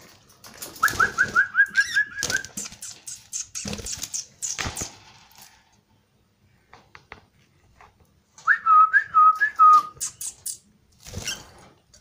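Budgerigars fluttering and scrabbling in a wire cage, wings flapping. Two short runs of quick, rising whistled notes come about a second in and again near nine seconds.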